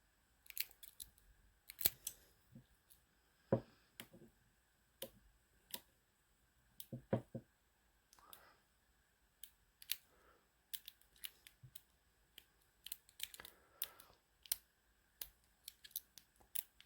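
Faint, irregular metallic clicks and small scrapes of a lock pick and tension wrench working the pin stacks inside a Master Lock padlock during single-pin picking.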